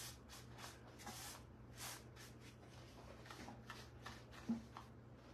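Paintbrush brushing milk paint onto a lantern: faint, repeated swishes of the bristles, with a light knock near the end.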